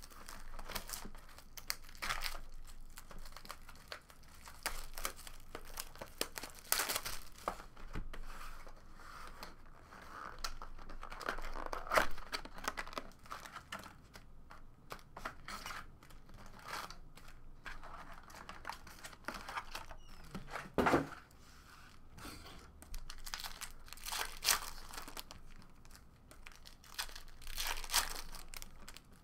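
Foil trading-card packs crinkling and rustling as they are taken out of a cardboard hobby box and torn open, with irregular crackling and several louder tearing strokes.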